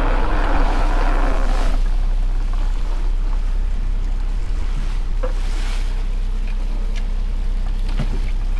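Boat motor running with a steady low drone, with wind and water. A higher-pitched whine stops abruptly a little under two seconds in, and a few sharp knocks follow later.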